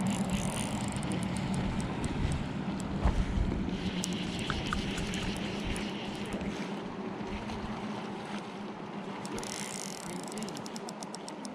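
Wind buffeting the microphone over the steady rush of a river, the low rumble easing off toward the end.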